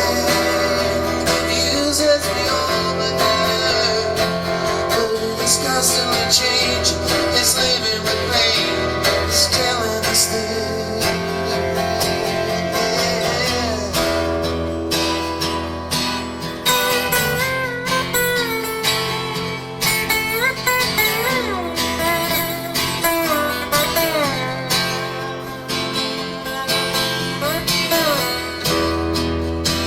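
Live band playing a song, electric and acoustic guitars to the fore, with a voice singing over it and bending, gliding lead lines in the second half.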